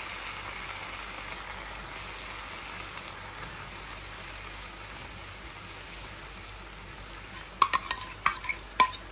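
Chicken kebabs sizzling softly and steadily in fresh cream in a frying pan over a low flame. From about seven and a half seconds in, a utensil clinks sharply against the pan several times.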